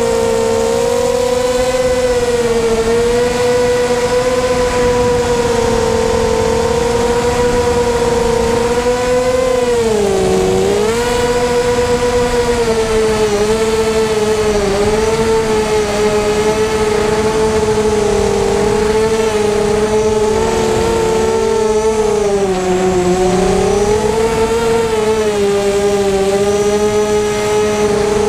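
Whine of a Blackout 330 FPV quadcopter's brushless motors and propellers, heard from its onboard camera. The pitch holds fairly steady and dips briefly twice as the throttle is eased and opened again.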